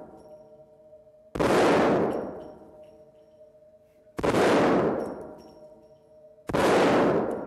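Desert Eagle semi-automatic pistol fired three times, about two and a half seconds apart. Each shot is loud and booms, then rings out over more than a second in the echo of an indoor range.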